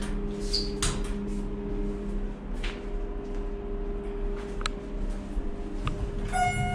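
Hydraulic passenger elevator at a landing, with a steady hum, several clicks and knocks as the car is dispatched and the doors work, and a short electronic tone near the end.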